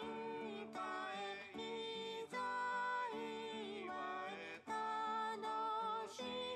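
A recorded Christmas song playing back: a voice singing phrase by phrase over acoustic guitar.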